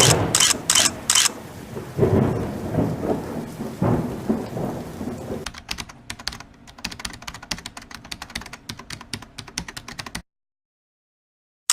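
Rumbling with a rain-like hiss and a few sharp bursts, then a dense rapid patter of clicks like typing. It cuts off suddenly to dead silence near the end, like an edited intro sound effect.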